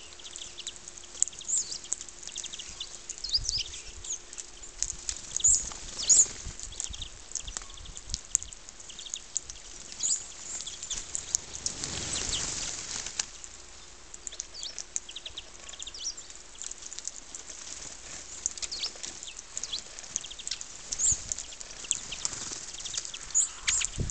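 Small birds chirping, many short high calls overlapping throughout, with a brief rush of noise about twelve seconds in and a faint steady hum underneath.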